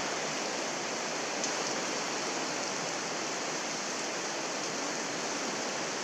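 Steady rain falling on wet paving and plants, an even hiss.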